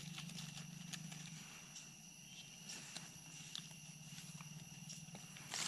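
Faint crackling footsteps on dry forest leaf litter, scattered light clicks and rustles, over a faint steady high hum.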